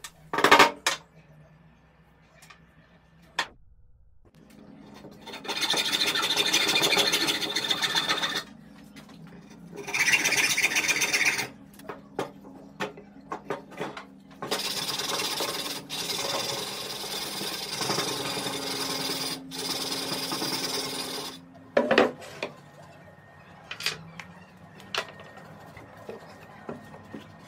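Rasping hand-tool strokes in quick back-and-forth succession, in three spells of a few seconds each. Between them, scattered clicks and knocks of wooden and metal parts being handled, with a loud knock about 22 seconds in.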